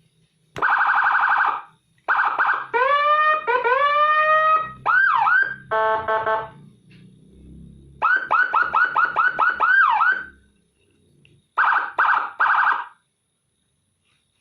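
Electronic siren module sounding a series of different siren tones through a speaker: buzzy steady blasts, rising wails and swoops, and a fast run of repeated chirps, with short gaps between tones.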